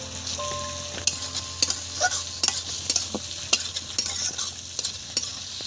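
Potato filling frying and sizzling in a pan while it is stirred, with frequent short scrapes and taps of the utensil against the pan.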